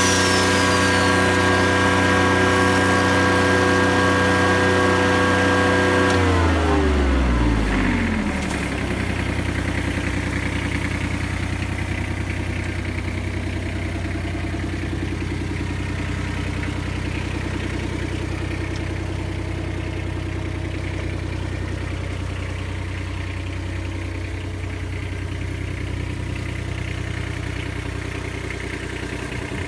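A 10 kW military diesel generator's engine running steadily. About six seconds in its speed falls over a couple of seconds, and it settles into a slower, slightly quieter steady run.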